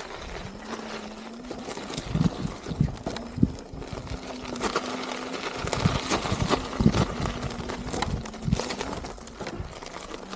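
Extreme Bull Griffin electric unicycle's hub motor humming steadily under load on a steep dirt climb. Its street tire crunches and knocks irregularly over ruts and loose stones, loudest a couple of seconds in and again near the middle.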